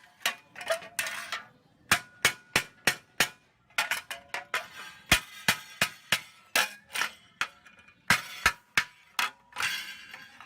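Hammer striking metal in irregular runs of sharp blows, some two dozen in all, several leaving a short metallic ring.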